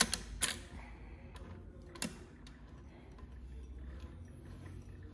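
A few sharp clicks of hands working the threads and parts around the needles of a two-needle industrial lockstitch sewing machine, in the first two seconds, over a low steady hum.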